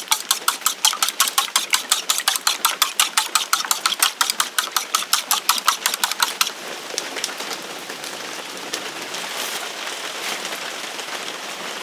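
Eggs being beaten quickly in a bowl, a fast even clacking of about six or seven strokes a second. About six and a half seconds in the beating stops and a steady sizzling takes over, like egg or oil in a hot pan for fried rice.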